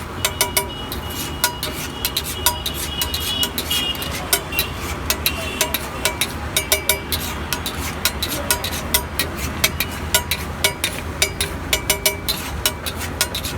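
Metal spatula clanking and scraping on a flat iron griddle (tawa), many sharp clinks at an irregular, quick rhythm, over a steady hum of street traffic.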